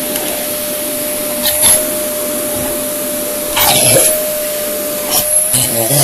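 Vacuum cleaner running with a steady whine, broken by a few short louder rushes of air, the longest about four seconds in, as the nozzle sucks at a St Bernard puppy's loose skin.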